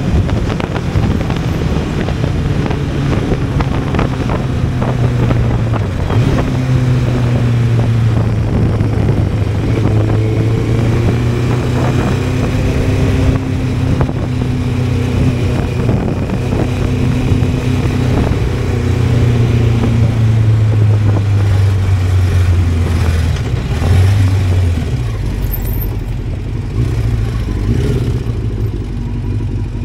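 Honda CBR600F inline-four engine running while riding, its pitch stepping and gliding up and down several times with gear changes and throttle.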